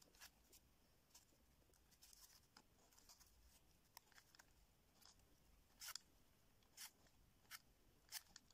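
Near silence with faint scattered clicks and rustles of fingers working a thin wire onto the wooden frame of a small homemade model plane.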